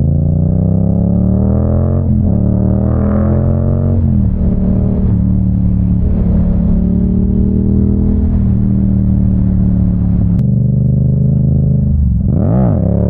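Yamaha R7 motorcycle's parallel-twin engine under acceleration, its pitch climbing and then dropping at gear changes about two and four seconds in, then holding steady. Near the end there is a quick rise and fall in pitch.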